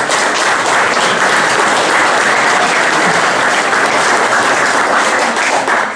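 Audience applauding steadily, a dense clapping that stops at the very end.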